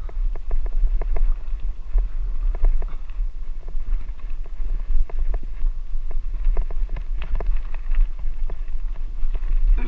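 Wind buffeting the microphone with a steady low rumble, over irregular knocks and rattles from the bike jolting along a rough dirt track.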